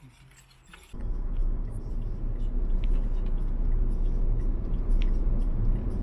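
Steady low rumble of a car on the move, cutting in suddenly about a second in.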